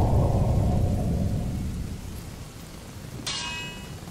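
A deep rumble, like a cannon boom or thunderclap dying away, fades steadily over about two seconds under a stormy hiss. Near the end a single sharp metallic clang rings out.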